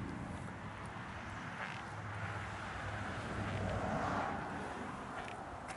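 A distant vehicle passing, heard as a broad, even rumble that swells to its loudest about four seconds in and then fades.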